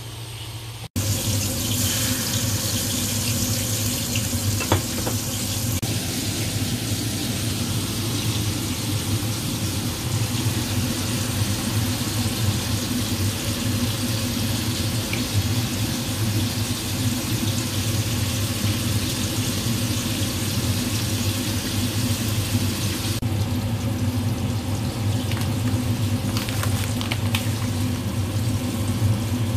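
Liquid boiling hard in a pan on a gas burner, a steady bubbling hiss that starts abruptly about a second in. A steady low hum runs underneath.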